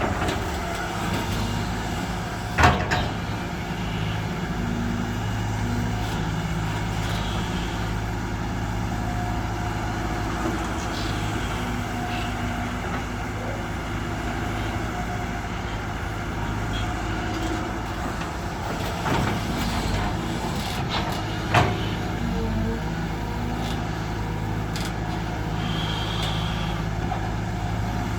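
Heavy diesel engines of an excavator and six-wheel dump trucks running steadily. Two short, sharp loud noises cut through, a few seconds in and again about two-thirds of the way through.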